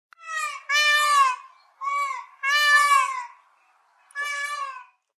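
A domestic cat meowing five times, each meow falling in pitch at its end, with a longer pause before the last.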